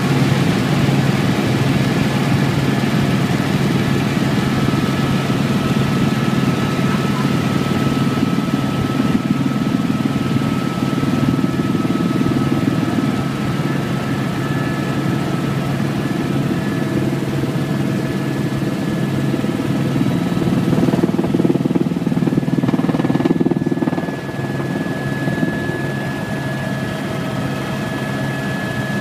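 Helicopter engine and rotor noise heard from inside the cabin in flight: a loud, steady drone with thin high whining tones over it, easing off slightly about 24 seconds in.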